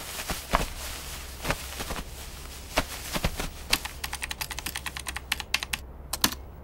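Typing on a laptop keyboard: scattered key clicks, then a fast run of keystrokes about four seconds in, ending with a couple of separate, harder key presses near the end.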